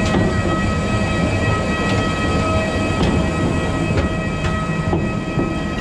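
Steady jet turbine whine and rush from a parked Airbus A320 on the apron, several high tones holding level throughout. Faint knocks of footsteps on metal air stairs come about once a second.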